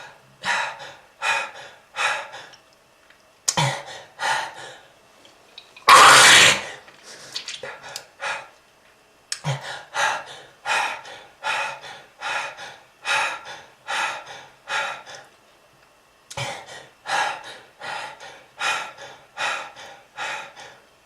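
A person coughing over and over in fits of short, sharp coughs about two a second, with one longer, louder cough about six seconds in. It is presented as the cough of a smoker with lung disease.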